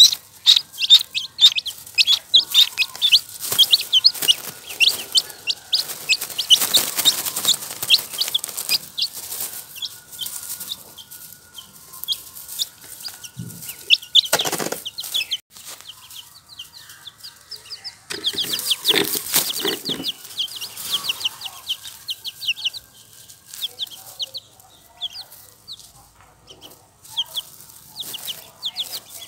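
Baby chicks and ducklings peeping: a busy stream of short, high-pitched peeps, sparser in the middle stretch. Several short, louder noisy bursts are mixed in.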